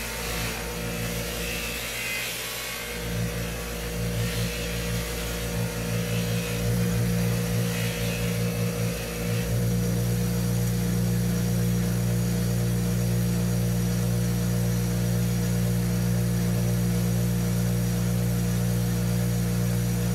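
A Central Machinery 6-inch bench grinder with a buffing wheel is running, and a golf iron's head is pressed against the buff. For the first nine seconds or so the motor's hum wavers, with a rubbing hiss over it as the buff works the metal. After that the grinder hums steadily with no load on it.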